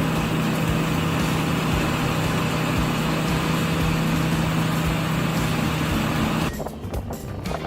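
Large industrial wood chipper running under load: a steady engine hum under a dense, even noise of wood being processed. About six and a half seconds in it cuts off abruptly, and quieter, irregular knocks follow.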